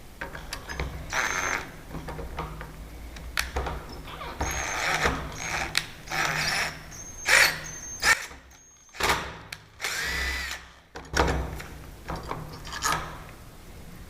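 Power drill running in a series of short, irregular bursts with a thin high whine.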